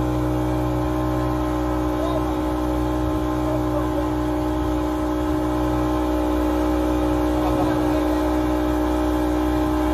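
Motorboat engine running at a steady speed, a constant hum with a steady pitched drone above it.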